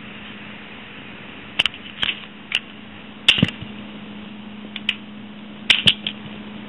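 Sharp plastic clicks and snaps, several of them and some in quick pairs: Bakugan toy balls being rolled onto their cards and springing open, over a low steady hum.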